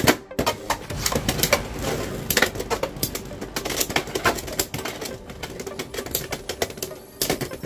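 Rapid plastic clicking and clattering. About five seconds in, the Beyblade X tops Leone Claw 5-60P and Weiss Tiger 3-60U are launched into a clear plastic stadium, where they spin and knock against each other, with one hard hit near the end.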